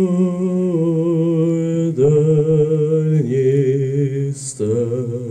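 Male voices singing a slow a cappella chant in long held notes, the pitch stepping to a new note about every second or two.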